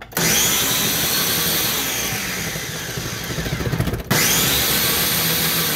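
Countertop blender running on a jar of leafy greens, carrot, cucumber and coconut water, blending the vegetables down before the fruit goes in. The motor starts abruptly, cuts out for an instant about four seconds in and starts again, its high whine sinking slowly in pitch during each run.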